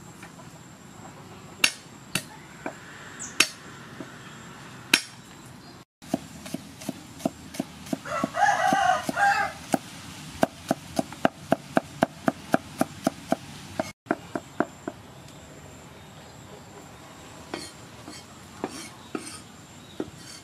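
Cleaver chopping garlic on a round wooden chopping board: a few single knocks, then a steady run of about three chops a second. A rooster crows once, about eight seconds in, the loudest sound.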